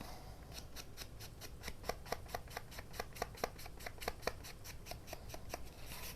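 Scissors making a quick, even run of small snips through paper, about six a second, as the edges of a paper tag are trimmed.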